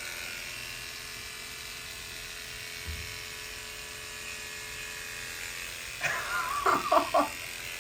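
Electric hair clippers running with a steady buzz as the patient's head is shaved before a hair transplant. A short voice-like sound comes near the end.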